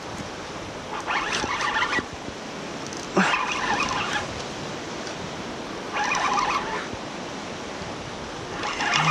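Fishing reel being cranked in short bursts of about a second, four times, with pauses between, as a lure is worked with twitches and stops. Surf washes steadily underneath.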